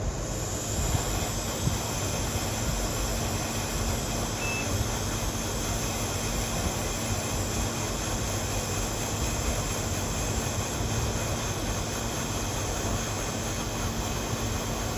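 Hot air rework station blowing a steady stream of hot air onto a small phone chip, coming on at the start, with a faint low hum underneath. The chip is being heated to soften its epoxy resin so it can be scraped off.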